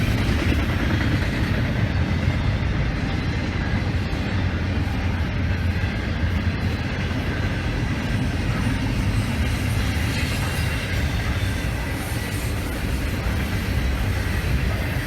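A train rolling past on the rails, a steady low rumble that holds without a break.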